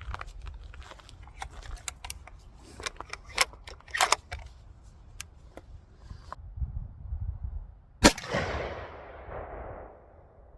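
A run of small clicks and knocks from handling the gun, then about eight seconds in a single loud gunshot whose echo rolls away over about two seconds.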